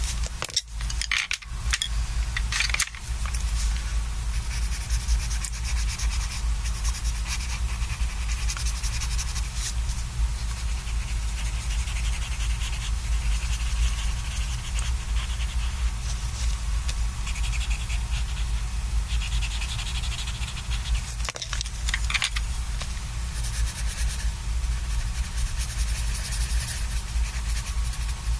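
Coloured pencil scratching on sketchbook paper in quick, repeated back-and-forth shading strokes, close to the microphone. A few louder knocks come near the start and again about three-quarters of the way through.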